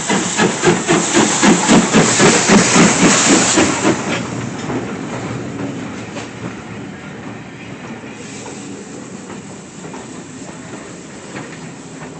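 Steam locomotive working, its exhaust chuffing about three times a second; after about four seconds the beats fade as it moves off, leaving the rumble and clatter of train wheels on the rails.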